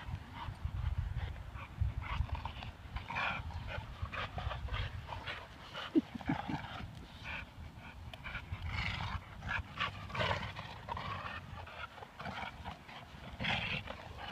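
Young pit bulls and a Rottweiler panting hard as they play tug-of-war over a big stick, with a short high whine about six seconds in.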